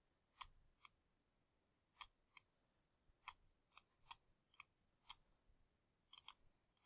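Faint, irregular clicks of a digital pen on its writing surface, about a dozen, as a word is handwritten stroke by stroke.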